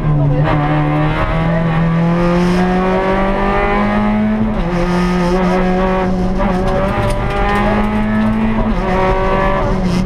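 Rally car engine heard from inside the cabin under way on a stage, its note climbing steadily and stepping down sharply about half a second in, around four and a half seconds in, and near the end, over a steady low road rumble.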